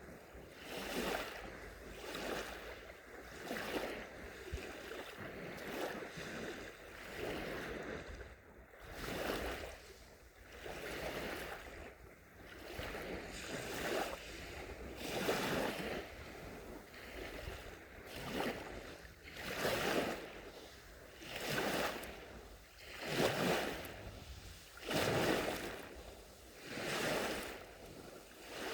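Gentle sea waves lapping onto a shore, one soft wash swelling and fading about every one and a half to two seconds.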